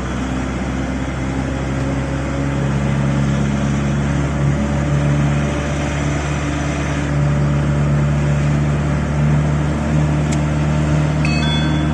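Camper van driving on the road: a steady engine and road drone whose pitch rises slightly a few seconds in as it picks up speed.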